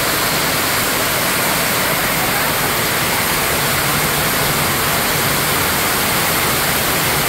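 Heavy rain drumming on a corrugated metal sheet roof, a loud, steady, unbroken hiss.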